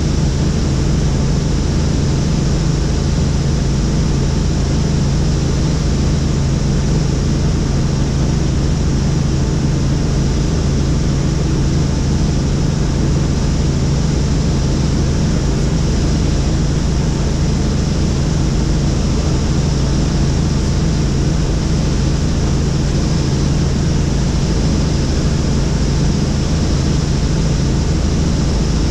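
Helicopter in flight, its engine and rotors giving a loud, unchanging drone with a steady low hum underneath.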